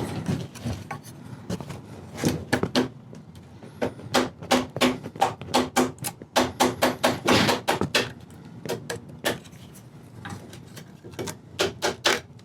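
A run of sharp wooden knocks and taps, irregular and in quick clusters, as parts of an old wooden armchair are handled and knocked on the workbench. The knocks come thickest from about two seconds in until near the end, with a few more at the very end.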